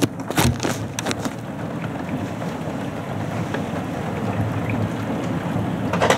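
Steady rain of a night thunderstorm, with a few sharp clicks in the first second and a low rumble of thunder that grows slowly louder through the second half.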